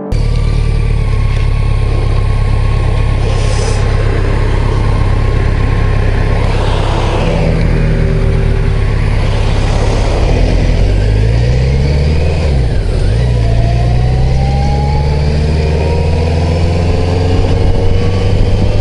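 BMW touring motorcycle engine running under way, recorded from the saddle, with a steady rushing noise over it. The engine note dips and climbs again about two-thirds of the way in, as with a gear change.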